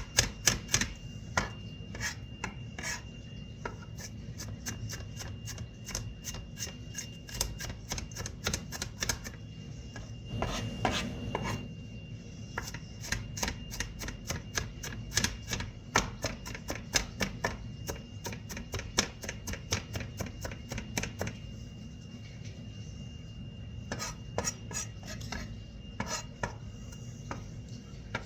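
Kitchen knife chopping an onion on a cutting board: quick, irregular knocks of the blade against the board, several a second, broken by a few short pauses.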